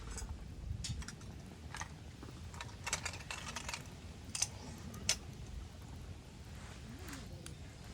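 Wood campfire crackling: scattered sharp pops and snaps, irregularly spaced, with a quick run of them about three seconds in.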